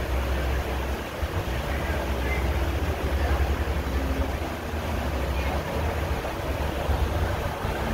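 Steady low wind rumble buffeting the microphone, with faint voices of other people in the background.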